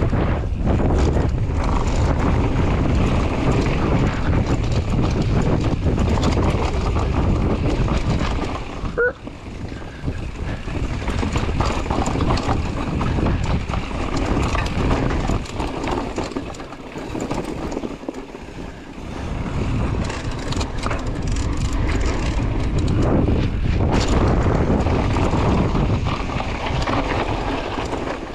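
Wind buffeting the microphone and knobby tyres rolling and rattling over a dry dirt trail as a downhill mountain bike descends at speed. The low rumble is heaviest for the first eight seconds and lighter after, with a short squeak about nine seconds in.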